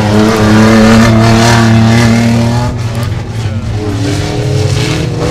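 Off-road competition 4x4's engine revving hard and held at high revs, easing slightly about three seconds in, then pulling again.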